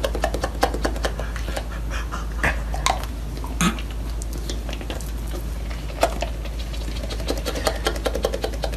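A dog smacking its lips and working its mouth over a taste of food: a quick, irregular run of small wet mouth clicks, over a steady low hum.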